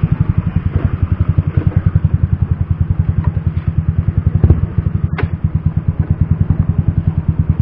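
Motor scooter's engine running at low speed with an even putter of about a dozen beats a second as it rides and comes to a stop. A brief high squeak about five seconds in.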